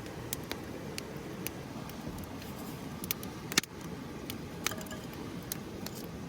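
Campfire crackling: irregular sharp pops and snaps over a steady low rumble, the loudest pop about three and a half seconds in.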